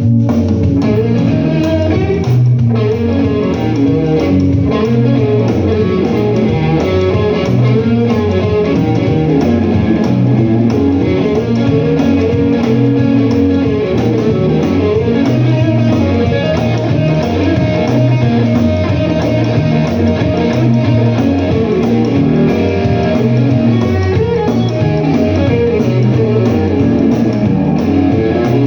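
Live blues-rock music played loud and steady, with electric guitar to the fore over a rhythmic low end.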